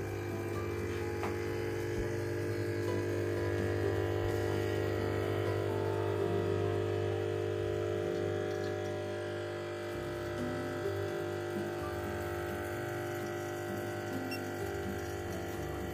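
Lelit Mara X espresso machine's vibratory pump running with a steady hum while it pushes water through the puck at brewing pressure during a shot pull.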